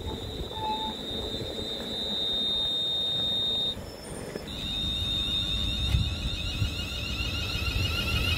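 Electric multiple unit pulling slowly away from the platform: a steady high electronic whine breaks off briefly around the middle. It then returns with several rising tones as the train gathers speed, over a low rumble from the wheels.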